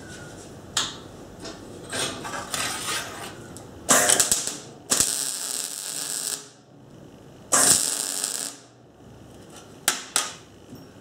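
MIG welder striking spot welds on a hand-saw blade: the arc runs in three short bursts of about a second each, starting about four seconds in, with sharp clicks of the torch and blade being handled. The spot welds heat the hardened saw steel to anneal it for drilling.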